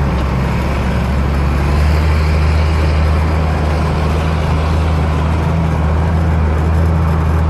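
Tractor diesel engine running steadily with a low, even drone, a little louder from about two seconds in.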